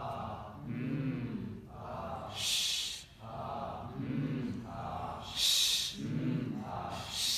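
A man's voice chanting in short phrases, with two sharp hissing sounds, about two and a half and five and a half seconds in.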